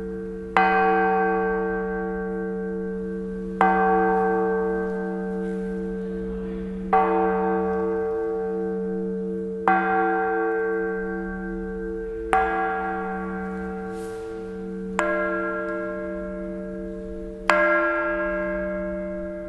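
La Piagnona church bell tolling: seven strokes about every two and a half to three seconds, each one ringing on over a steady low hum.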